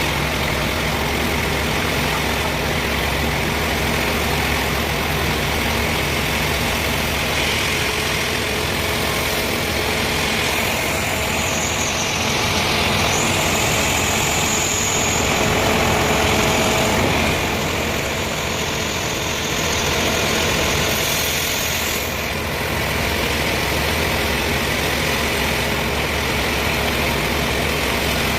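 A sawmill's engine running steadily. From about 11 to 22 seconds a high whine joins in and the sound grows a little louder.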